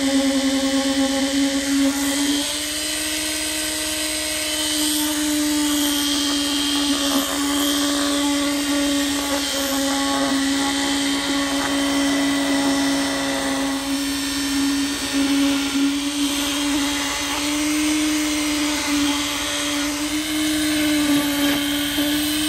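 Concrete poker vibrator running with a steady high hum in fresh concrete, compacting it around the rails of the new point; its pitch steps up slightly about two and a half seconds in.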